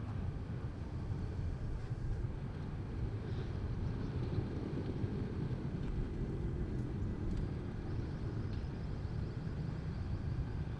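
Steady low rumble of outdoor ambience, with a few faint, brief higher sounds over it.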